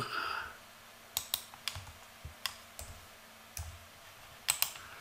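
Scattered clicks of computer keyboard keys and a mouse: a few sharp short taps, some in quick pairs, with soft low thuds between them.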